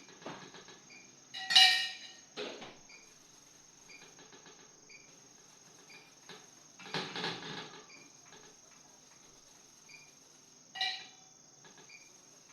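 A few kitchen clatters of metal cookware: a loud ringing metallic clink about one and a half seconds in, a rougher clatter about halfway, and another ringing clink near the end. Crickets chirp steadily underneath.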